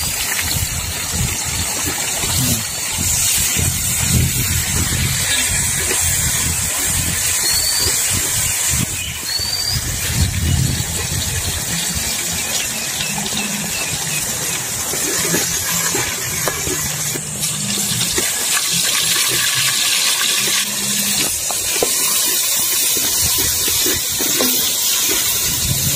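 Steady rush of a stream and small waterfall, mixed with onions and whole spices frying in a large aluminium pot and a metal skimmer scraping and stirring against the pot.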